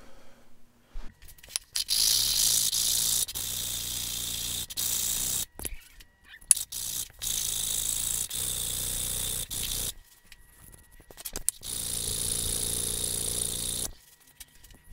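A 3D-printed plastic mold half being rubbed by hand, face down, on dry sandpaper: a steady scraping hiss in several stretches of a few seconds each, with brief pauses between, as the mating face is sanded flat.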